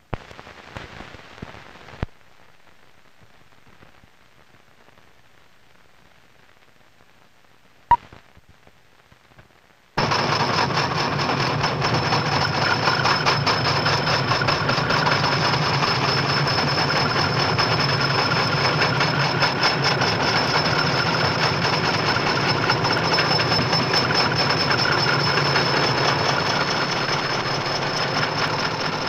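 Old optical film soundtrack crackling and hissing, with one sharp pop, then about ten seconds in a loud, steady rattling clatter starts abruptly: a wooden roller coaster train running along its track.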